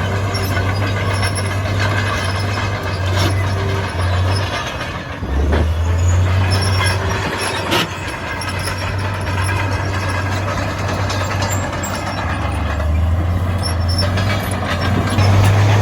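Heavy construction machine's diesel engine running under load, its low note dropping about five seconds in and climbing again later, with a couple of sharp metallic clanks.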